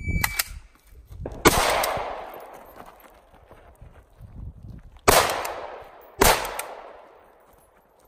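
Shot timer start beep, then rifle shots: two quick cracks right after the beep and three louder shots spaced over the next five seconds, each trailing off in a long echo.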